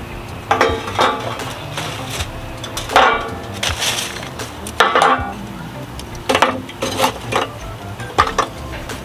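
Lumps of hardwood charcoal being dropped and piled into a steel grill firebox: about a dozen irregular, clattering knocks, many with a short glassy ringing clink.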